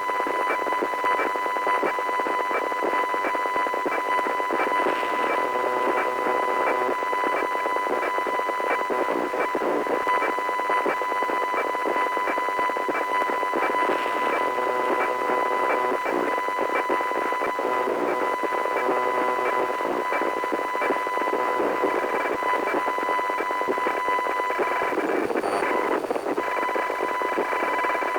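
Electronic computer/network noise: a dense data-like hiss with a steady high tone and rapid regular ticking, turning to a warbling sweep near the end.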